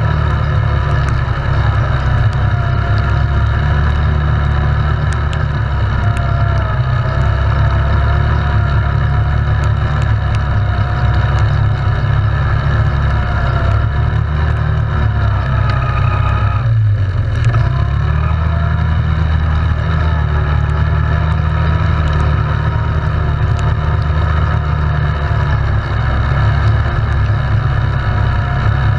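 ATV engine running steadily while riding, with a brief dip off the throttle about two-thirds of the way through before it picks back up.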